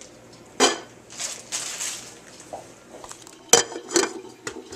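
Cookware and utensils clinking and knocking: a few sharp clatters with a metallic ring, the loudest about three and a half seconds in and another about half a second later.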